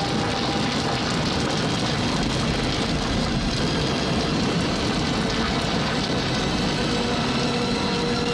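Steady, dense sound of vehicle engines running.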